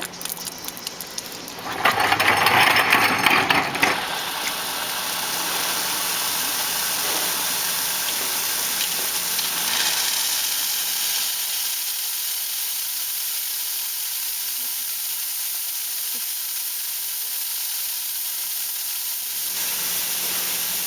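Steam wand of an Astoria espresso machine hissing. A louder, rougher burst comes about two seconds in, then a steady high hiss follows.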